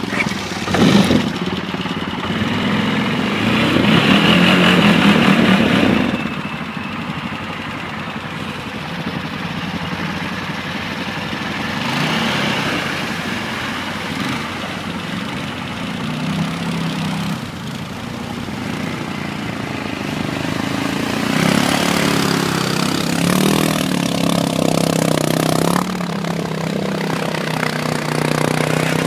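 Stels ATV engines revving up and down as the quad bikes churn through deep mud and water, the engine pitch rising and falling. It is loudest a few seconds in and again in the later part.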